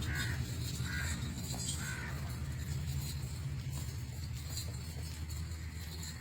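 A bird cawing three times, about a second apart, early on over a steady low hum.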